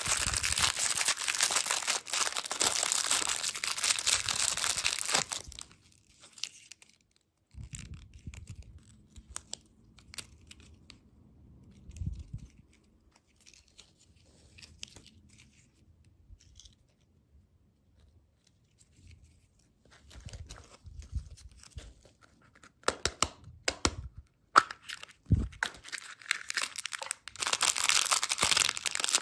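Plastic candy packaging crinkling and tearing in a long dense stretch, then a quieter spell of scattered clicks and taps, before the crinkling starts up again near the end.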